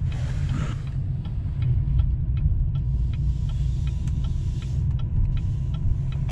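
Inside the cab of a GMC Sierra 2500HD with a tuned L5P Duramax 6.6-litre V8 turbodiesel, the engine and road give a steady low rumble at low speed. Over it the turn signal ticks evenly, with a brief rushing hiss near the start.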